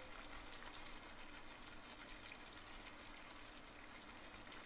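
Goan fish curry gravy simmering in a pan on the stove: a faint, steady sizzle with no distinct splashes.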